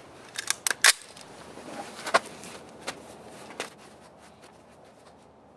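Sharp metallic clicks from an AR-15 pistol being handled. There are four quick clicks about half a second in, then a few single clicks spread out as the gun is settled onto the rest.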